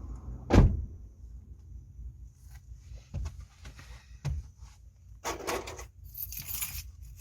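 A dull thump about half a second in, a couple of light knocks, then two short rustling bursts near the end: handling noise as gloves are pulled on.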